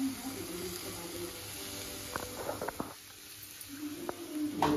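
Mutton brain fry sizzling faintly in a hot iron kadai as lemon juice is squeezed over it, a steady soft hiss with a few light clicks around the middle.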